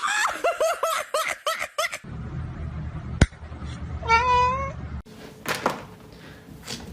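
Short pitched animal calls: a quick run of about seven brief calls in the first two seconds, then a sharp click and a single longer call about four seconds in.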